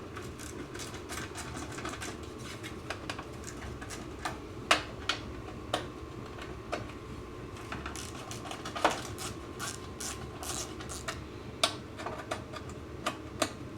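Hand tools and metal parts clicking and knocking irregularly during work on a lawn mower, with the sharpest knocks about 5 and 9 seconds in, over a steady background hum.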